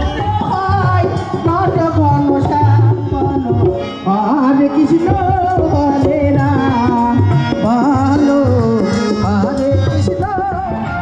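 Loud amplified music over big PA loudspeakers: a woman singing a wavering, ornamented melody live into a microphone, over a regular drum beat.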